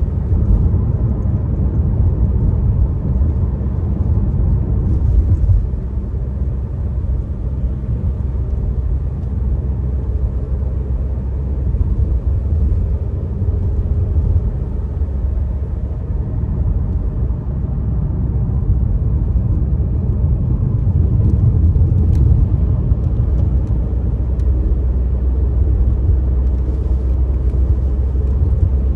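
Steady low rumble of a car's engine and road noise heard from inside the cabin while driving, swelling and easing a little with no sharp events.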